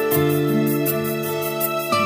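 Instrumental background music: sustained chords that change about once a second over a steady, quick ticking beat.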